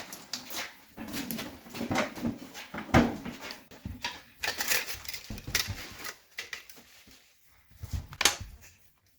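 Irregular clicks, knocks and scrapes of tools and engine parts being handled during engine assembly, with one sharper knock about three seconds in.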